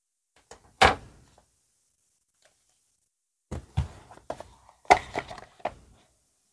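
AirPods paperboard packaging being handled: one sharp thunk about a second in, then a run of knocks and scrapes as the box and its inner tray are moved, the loudest near the end.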